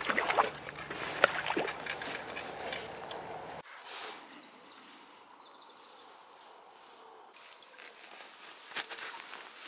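Water splashing with scattered clicks as a hooked fish drags the float across the surface. About three and a half seconds in the sound cuts to a quieter open-air background with faint short high chirps and a single sharp click near the end.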